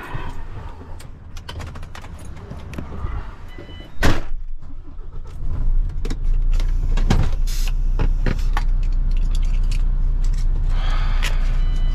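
Truck cab door slammed shut, then about two seconds later the MAN truck's diesel engine starts and settles into a steady low idle, with a couple of short dashboard beeps.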